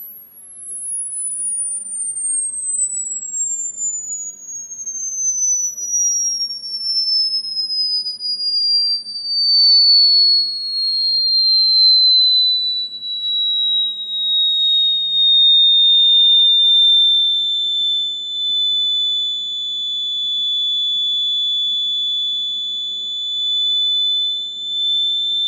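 A mobile phone ringtone played through the phone's small speaker: a single pure electronic tone that slides slowly down from very high to a shrill whistle, with a fainter tone above it. It then levels off, holds steady, and stops suddenly at the end.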